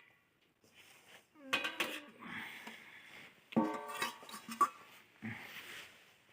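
Metal kitchen utensils and pots being handled: several sharp clinks and knocks, some ringing briefly, with scraping between them.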